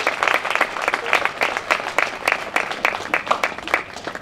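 Audience applauding with dense hand clapping, which thins out near the end.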